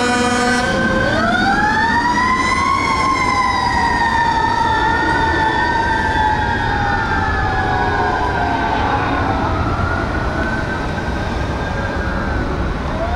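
Fire apparatus Federal Q mechanical siren winding up about a second in, then slowly sweeping down and up, with a second siren wailing across it; it winds up again near the end. A steady horn blast cuts off under a second in.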